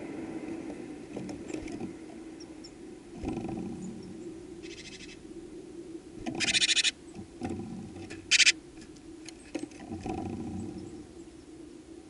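Three short, harsh rattling bird calls over a steady low hum. The loudest comes about six and a half seconds in, and a brief one follows near the eight-and-a-half-second mark.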